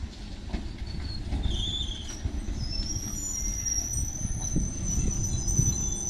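MMTS electric multiple-unit local train rolling slowly along the platform with a low rumble. A short high squeal comes about a second and a half in, then a long high squeal from about halfway through as it brakes to a halt.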